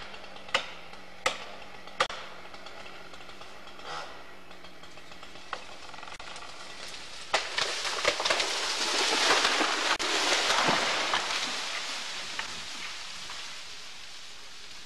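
A tulip poplar falling: a few sharp knocks in the first two seconds, then about seven seconds in, cracks of breaking wood and a rush of branches sweeping through the canopy that swells, crashes and dies away over several seconds.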